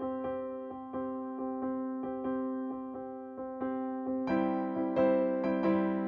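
Background music: a gentle electric piano playing repeated sustained chords in a steady pulse, growing fuller and brighter about four seconds in.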